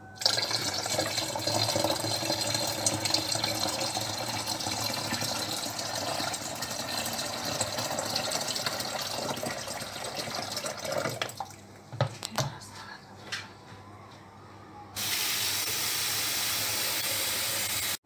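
Water poured steadily from a pitcher into a large plastic bottle, filling it up with lemonade, for about eleven seconds. After that come a few knocks of the plastic containers, and a steady hiss that starts and stops abruptly in the last three seconds.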